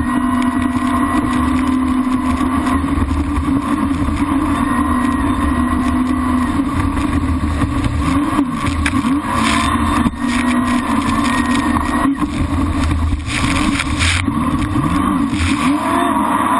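Jet ski engine running hard at speed, a steady whine that dips and rises in pitch several times in the second half, over the rush of water spray.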